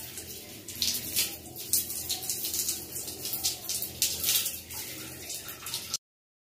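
Water poured from a plastic mug over long wet hair, splashing down in repeated pours, as when rinsing hair. The sound cuts off suddenly near the end.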